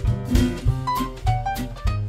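Vintage swing band music, an instrumental passage with a steady beat and no vocals.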